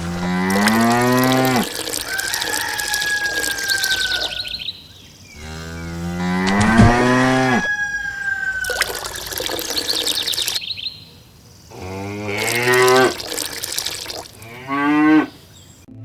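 Cows mooing: four long, drawn-out calls, two near the start and two shorter ones near the end.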